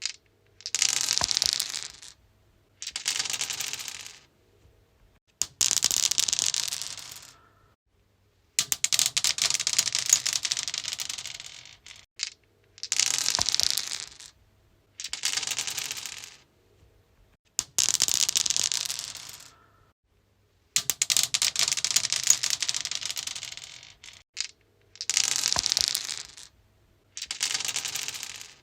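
Dice rolled again and again on a stone surface, about ten rolls: each a rattling clatter of clicks lasting a second or two that dies away, with brief silences between.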